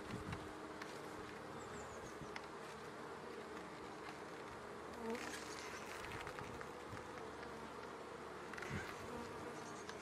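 Western honeybees buzzing steadily over an open brood box of their hive, a low even hum. A few faint scrapes about halfway through and near the end as a brood frame is worked out of the box.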